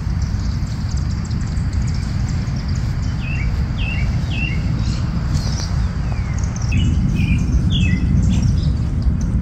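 Small birds chirping in short, downward-sliding calls, a few at a time, over a steady low rumble that grows louder about two-thirds of the way through.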